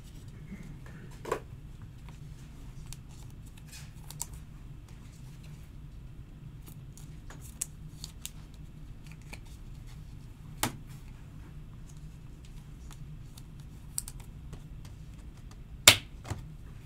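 Scattered light clicks and taps from trading cards being handled and set down on a table, the loudest near the end, over a low steady hum.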